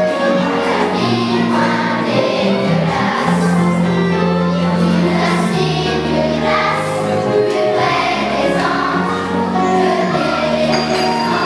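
Children's choir singing together over an instrumental accompaniment that holds long low notes, changing every second or two.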